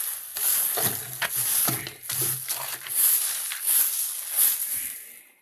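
A broom sweeping a floor in repeated swishing strokes, a little more than one a second, fading near the end. Hens make short low clucking sounds among the strokes.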